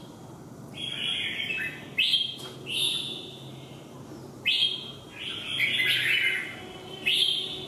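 Caged red-whiskered bulbul singing a series of loud, short whistled phrases, about six of them, each starting abruptly.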